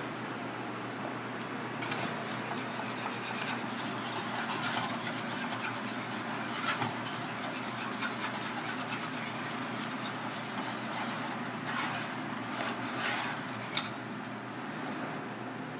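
A wire whisk scraping and stirring a thick white sauce in a cast-iron pan: an uneven rasping with a few sharper clicks of the wires against the pan. It comes in about two seconds in, over a steady hiss.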